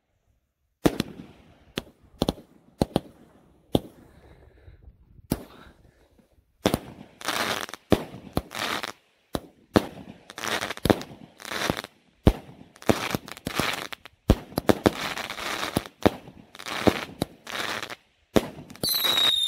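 A fireworks cake firing. For the first six seconds, single sharp bangs come about a second apart. From about seven seconds in, the shots come faster, each bursting with a short crackling hiss. Falling whistles start right at the end.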